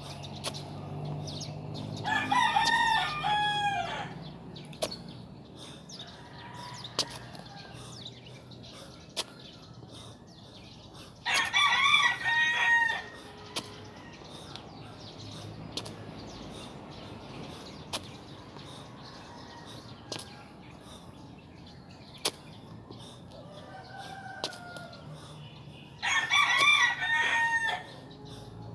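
A rooster crowing three times, each crow about two seconds long and roughly ten to fifteen seconds apart, with faint scattered clicks in between.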